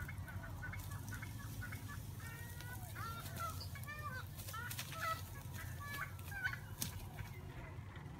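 Birds calling in a quick string of short chirping notes over the low, steady running of a car engine towing a ride-on mower by a strap, with a couple of sharp clicks about two-thirds of the way through.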